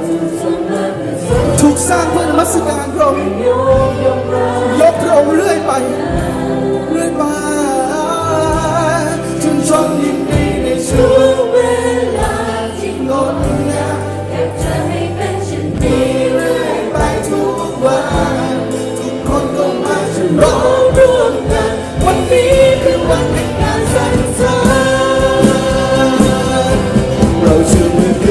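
Live Christian worship band playing a praise song: several singers over guitars, with a steady beat and many voices singing together.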